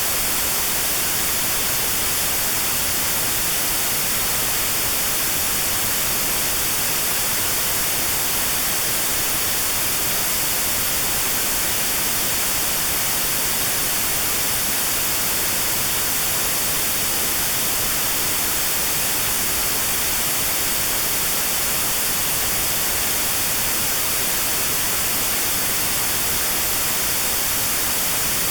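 Notch-filtered white noise: a steady, even hiss with a narrow band around 4 kHz cut out, made for notched sound therapy against tinnitus.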